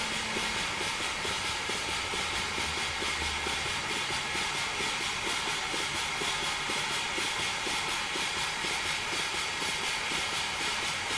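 Stuart Turner 7A model steam engine running steadily on compressed air at low pressure (0.2–0.3 bar), with oil mist lubrication. Air hisses steadily, and the exhaust keeps a fast, even beat.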